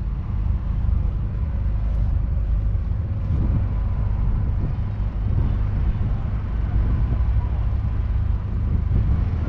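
John Deere 6R 195's 6.8-litre six-cylinder diesel engine running steadily, a continuous low rumble with a faint steady whine above it.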